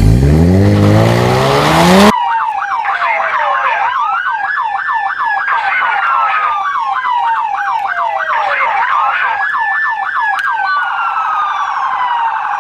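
An engine revving up with a steadily rising pitch for about two seconds, then a police siren sound effect: a fast yelp siren cycling several times a second with a slower wailing siren rising and falling over it.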